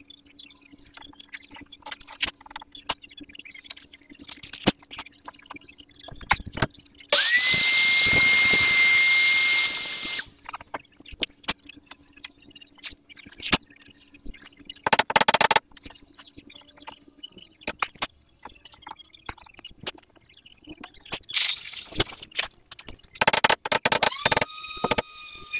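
A handheld power tool spins up to a steady high whine, runs for about three seconds and stops. Scattered knocks and clicks of workshop handling come before and after it, and another short run of the motor starts near the end.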